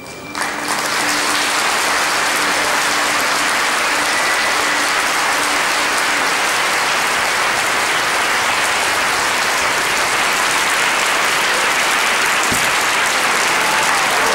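Theatre audience applauding, breaking out just under half a second in as the music ends, then steady, dense clapping.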